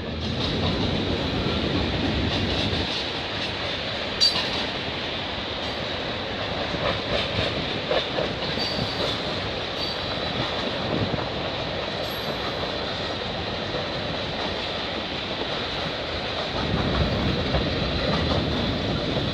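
CN freight train of tank cars rolling past, its wheels giving a steady rumble and rail noise with a thin high steady tone and a few clacks; the noise swells near the end.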